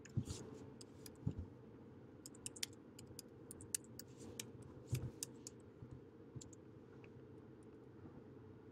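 Someone typing on a computer keyboard: faint, irregular key clicks, with a few duller, heavier knocks among them.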